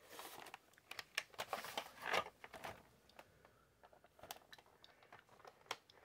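Cardboard box with a plastic window handled and turned over in the hands: faint scraping and rustling in the first couple of seconds, then scattered light clicks and taps.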